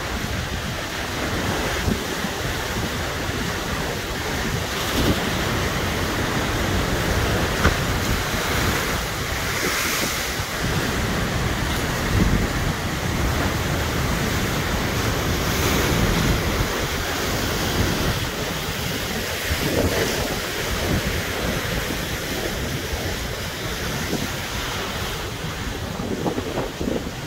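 Sea waves breaking and washing over shoreline rocks, surging every few seconds, with strong wind buffeting the microphone. The water is running high in the wind, covering rocks that are usually exposed.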